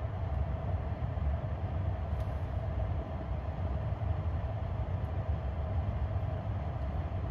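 Low, steady rumble inside the cab of an electric Tesla Cybertruck pulling away slowly while towing a travel trailer: road and running-gear noise with a faint steady hum over it, and no engine sound.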